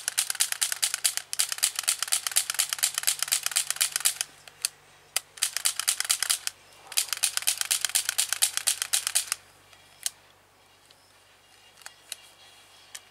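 Plastic M9 airsoft gas pistol clicking fast as it is worked by hand: three runs of many quick clicks a second, then a few single clicks near the end.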